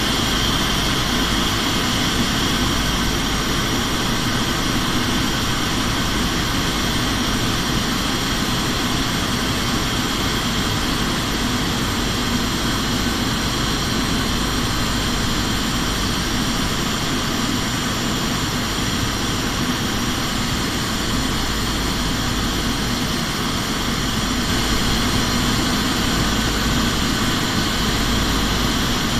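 Steady airliner cabin noise on descent: engine drone and rushing airflow heard from inside the cabin, with a few faint steady whining tones over it.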